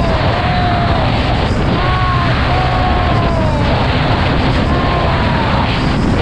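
Steady, heavy wind rush on a helmet-mounted action camera's microphone, mixed with a Bajaj Pulsar NS200's single-cylinder engine running at a steady cruise of about 110 km/h on the highway.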